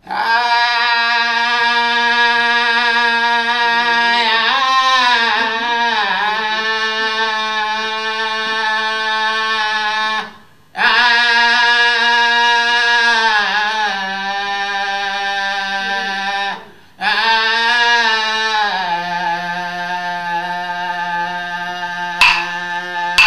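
A single voice sings an Aboriginal farewell song in three long phrases of held notes with short breaks between them. Within the phrases the pitch slides down and settles each time on a lower held note. Near the end, sharp knocks start at about one a second.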